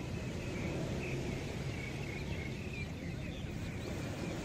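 Steady beach ambience of ocean surf washing in, with faint high chirps now and then over the low rumble.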